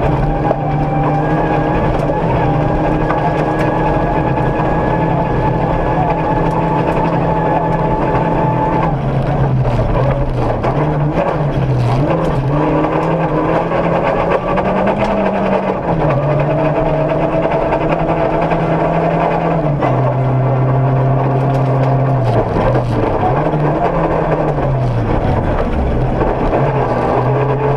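Ford Ka rally car's engine heard from inside the cabin at speed. It holds a steady pitch for several seconds at a time, with a few dips and rises in the middle and a drop in pitch about twenty seconds in, followed by more wavering dips.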